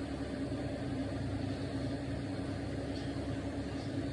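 A steady machine hum with one constant tone and a low rumble beneath it, unchanging throughout.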